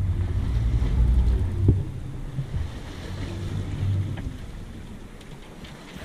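Wind buffeting the microphone over open sea, with waves sloshing against the boat's hull; the gusty rumble eases toward the end, and there is a single short knock about a second and a half in.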